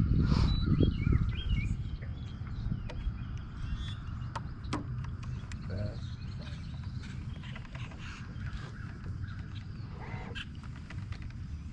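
Birds calling on and off in short curved notes over a steady low rumble, with a few sharp clicks.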